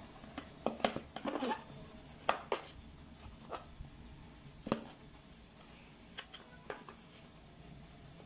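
Stainless-steel ice cream scoop scraping through hard frozen ice cream and knocking against the plastic tub. A quick run of clicks and scrapes in the first two and a half seconds, a single sharper knock near five seconds, then a few faint ticks.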